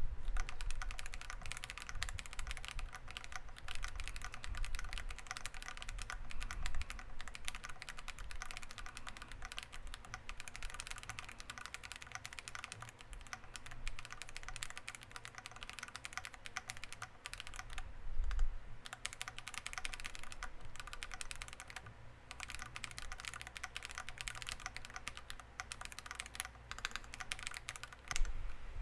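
Continuous fast typing on a WEIKAV Record mechanical keyboard in a CNC aluminium case, with factory-lubed Akko Cream Black Pro linear switches, a polycarbonate plate, leaf-spring mount and PBT keycaps: a steady stream of key clacks with one heavier low thud about two-thirds of the way in.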